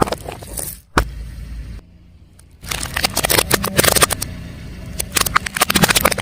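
A car tyre rolling over and crushing crunchy objects: a sharp crack about a second in, then two spells of dense crackling and snapping over the low rumble of the car.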